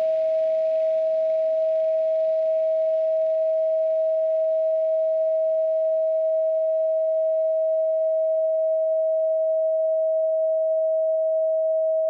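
A steady, unbroken pure sine tone at 639 Hz, a so-called solfeggio frequency played for meditation. A faint soft ambient backing fades away under it over the first several seconds.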